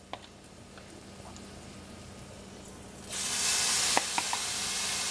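Hot cast iron skillet sizzling, faint at first. About three seconds in, loud sizzling starts suddenly as seasoned shrimp are spooned into the hot pan, with a few light clinks of the metal spoon.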